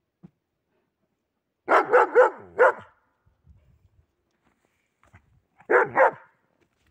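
A dog barking: four quick barks about two seconds in, then two more near the end.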